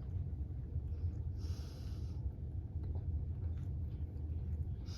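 Maine Coon cat purring close by, a steady low rumble, with a short breathy hiss about a second and a half in.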